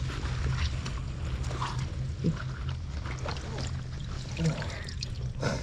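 Water splashing and sloshing in short, irregular splashes over a steady low hum.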